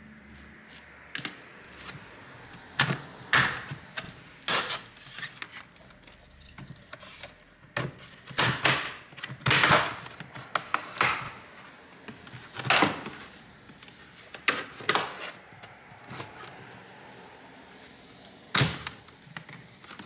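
Plastic snap clips of an Asus VivoBook X507U laptop's case popping loose one after another as a plastic pry tool is worked along the seam between the keyboard deck and the bottom case. The sound is irregular sharp clicks and snaps, with scraping and handling of the plastic shell in between.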